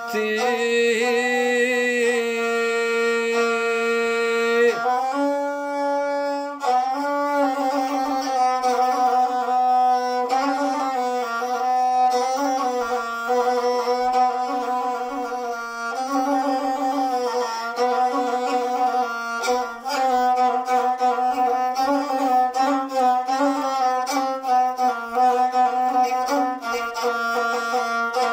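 Gusle, the single-string bowed folk fiddle, played solo without singing: a melody moving in small steps around one main note, with some notes held for a few seconds.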